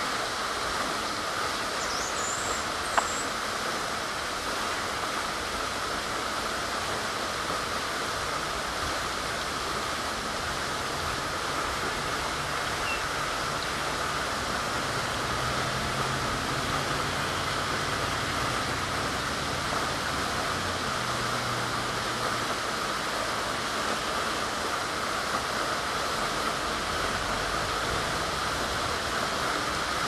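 Steady rushing background noise, with one brief, faint high bird chirp about two seconds in and a single click just after it.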